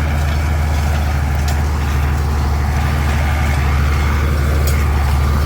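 Farm tractor engine running steadily at a constant speed, a loud, even low hum.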